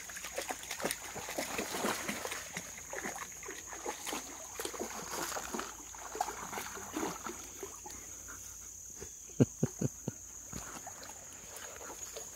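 Dogs wading and sloshing through shallow creek water, with scattered irregular splashes. A quick cluster of about four sharp, low thumps comes about nine to ten seconds in.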